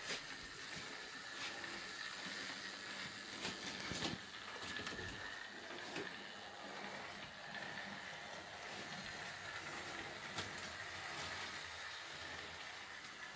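Bachmann Thomas model locomotive running on the layout's track: a steady high whine from its small electric motor over the rattle of wheels on rail, with a few sharp clicks.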